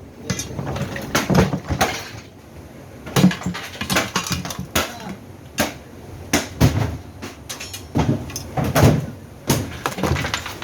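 Irregular knocks, clunks and rattles of washing-machine parts being struck and handled as the machine is taken apart, some hits landing close together.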